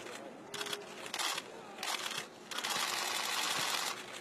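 Many press cameras firing rapid shutter bursts: clicking in several short volleys, then one longer unbroken burst lasting over a second, starting about two and a half seconds in.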